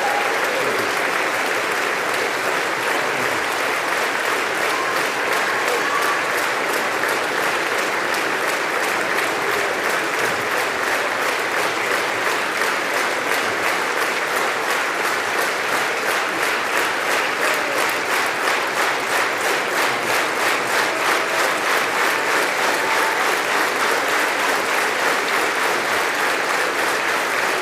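Large audience applauding without a break, the clapping falling into an even, rhythmic beat in the second half.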